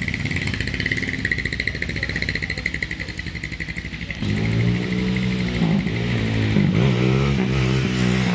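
Honda GL100 motorcycle with a bored- and stroked-up single-cylinder four-stroke engine riding toward the listener under throttle. About four seconds in its exhaust becomes much louder as it comes close, the pitch rising and falling as it revs.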